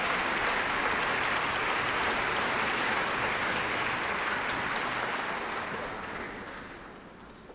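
Large audience applauding, the applause thinning out and dying away over the last two seconds.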